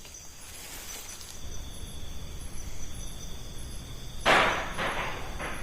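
An object thrown onto the roof lands with a loud crash about four seconds in, followed by two weaker rattles as it settles.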